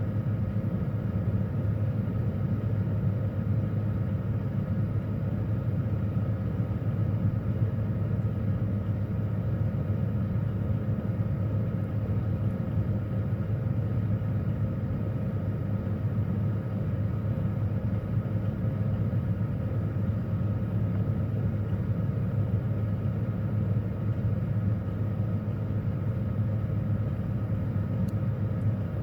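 Refrigerator running, heard from inside the closed fridge: a steady low hum with faint high steady tones over it.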